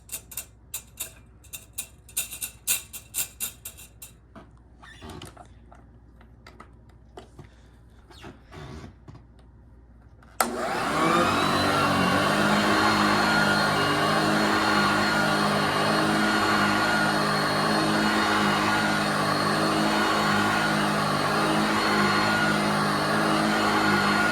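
Hoover Junior upright vacuum cleaner: a series of sharp clicks and knocks as it is handled, then about ten seconds in its motor is switched on, spins up and runs steadily with a hum and a whine.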